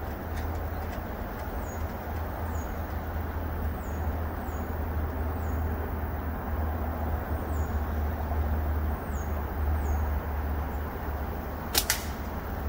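A slingshot with Snipersling .5 bands shot once, near the end: two sharp cracks close together as the bands release. Under it runs a steady low rumble, with a repeated high falling chirp.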